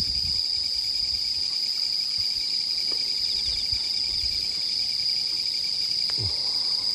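Chorus of autumn insects, crickets among them, trilling steadily: a continuous high-pitched ring with fainter pulsing chirps beneath it.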